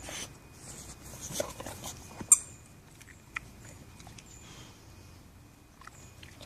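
A dog's squeaky toy squeaking: one sharp, loud squeak a little over two seconds in, with a few fainter short squeaks and clicks around it.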